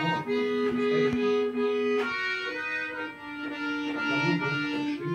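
Accordion playing a slow tune of long held notes over chords.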